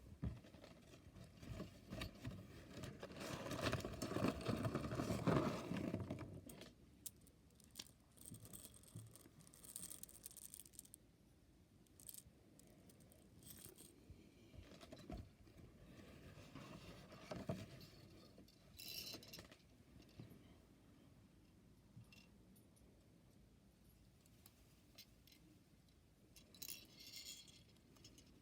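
Handling noise: rustling, loudest in a stretch about three to six seconds in, with short bouts of metallic jingling, the loudest near the end.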